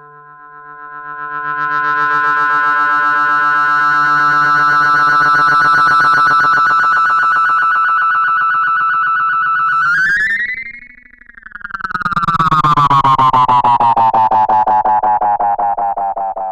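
An Arturia MicroFreak synthesizer playing through a Behringer VD-400 analog delay pedal. A sustained, many-harmonic tone swells in and holds, with a fast, even ripple running through it. About ten seconds in the pitch bends up and the sound briefly dips, then a new tone swells back in and glides slowly downward.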